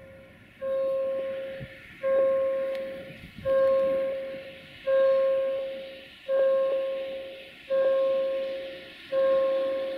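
A repeating electronic warning tone, one note about every second and a half, each starting sharply and fading away, typical of a level crossing signal sounding as a train approaches.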